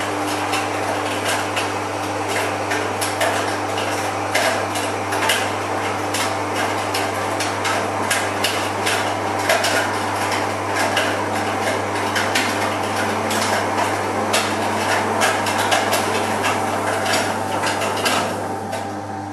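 MonsterMill roller malt mill driven by a 220-volt, 180 RPM electric motor, crushing barley malt: a steady motor hum under a dense, irregular crackle of grain cracking between the rollers. A second or so before the end the crackling stops and the mill runs on empty with only the hum.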